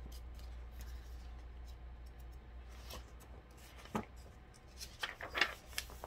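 A picture book being opened and its pages handled: soft paper rustles and light clicks, with a sharp tap about four seconds in and a flurry of rustling near the end, over a faint low hum.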